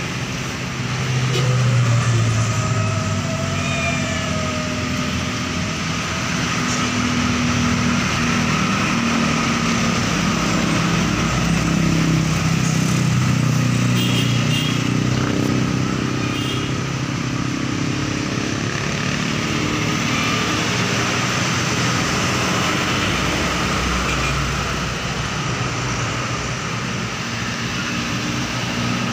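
Steady road traffic: motor vehicle engines running and passing, swelling and fading in waves.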